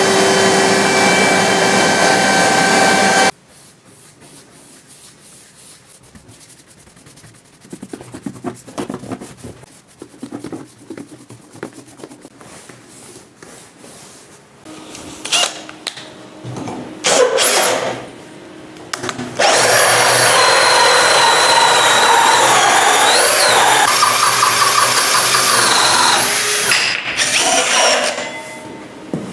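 Makita trim router running steadily and cutting plywood, cutting off abruptly about three seconds in. A much quieter stretch of light scraping and knocks follows. About twenty seconds in, a cordless drill with a hole saw runs loudly for some seven seconds, cutting through plywood, then fades.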